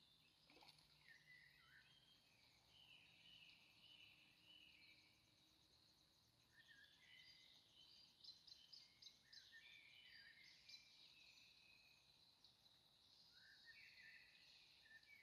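Faint birdsong: several songbirds chirping and whistling in short falling and rising phrases, with a run of quick repeated chirps around the middle, over a steady high hiss.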